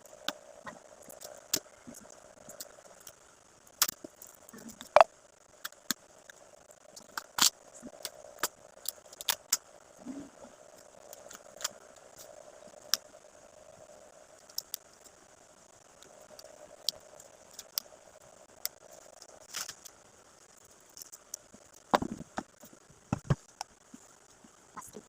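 Irregular sharp clicks, taps and light rattles of small items and packaging being handled and unpacked, some of them loud.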